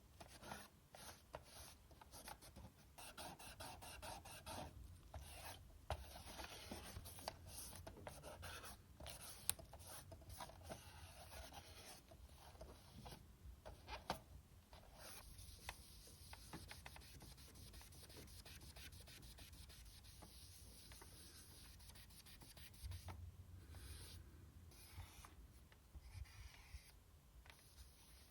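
Faint rubbing and scrubbing on the PS4 Slim's plastic cooling fan as it is cleaned, with a few light clicks.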